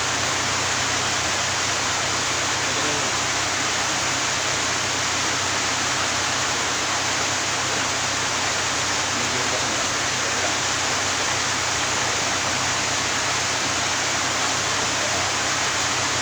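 Steady, even hiss with a low hum beneath it, unchanging throughout.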